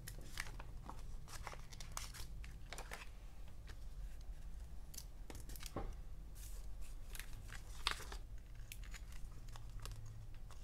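Stickers being peeled off their plastic backing sheets and pressed onto a paper diary page: scattered crackles, crinkles and light taps, with one sharper click about eight seconds in.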